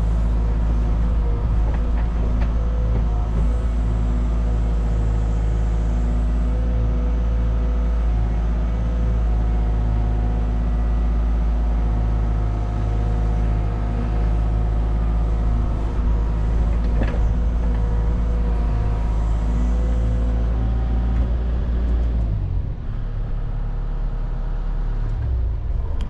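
Cat 306 mini excavator's diesel engine running steadily under load as the bucket digs a trench. The engine note drops and changes near the end.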